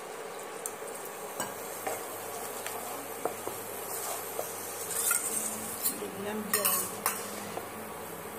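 A spatula scraping and knocking against a nonstick wok while stirring a thick, simmering spice gravy, over a steady low sizzle. The scraping gets busier and louder a little after halfway.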